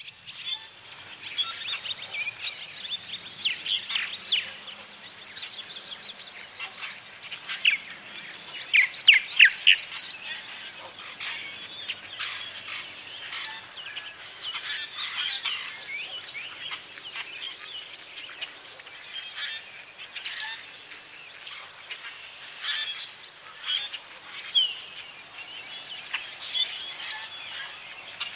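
Dense spring evening bird chorus of many overlapping calls and songs, from common grackles, red-winged blackbirds, American robins and swallows. The loudest moment is a quick run of about four sharp falling notes about nine seconds in.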